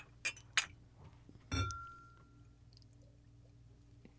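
Drinking cups clinked together in a toast: a few light clinks, then a louder clink about a second and a half in that rings briefly.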